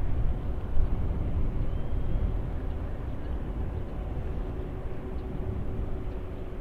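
Wind buffeting the microphone, a low, uneven rumble, with a faint steady hum joining about three seconds in.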